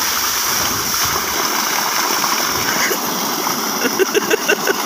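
Tube-well outlet pipe pouring a heavy jet of water into a pool: a steady rush and splash. Near the end a voice gives a few short sounds, perhaps from the man sitting under the jet.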